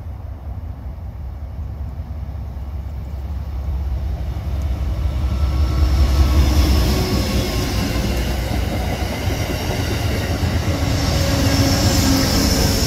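Amtrak passenger train hauled by GE P42DC diesel locomotives passing close by: diesel engine rumble and wheels running on the rails. It grows loudest about six seconds in as the lead locomotive goes by, stays loud through the coaches, and swells again near the end as the rear locomotive passes.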